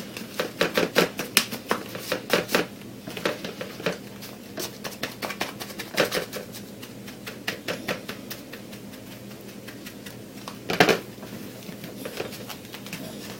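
Dry fatwood shavings (Maya dust) being worked by hand: many quick, irregular clicks and taps, thick at first and then scattered, with one louder knock about eleven seconds in.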